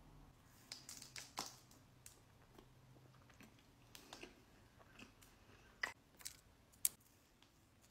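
Close-miked eating sounds from biting and chewing soft frosted cookies: quiet, with scattered small crunches and wet mouth clicks, and a few sharper clicks in the second half.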